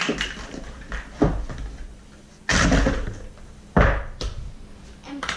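Knocks and clatter of small boxes and plastic eggs being handled on a table: a loud, short clatter about two and a half seconds in and a sharp knock just over a second later, with lighter taps between.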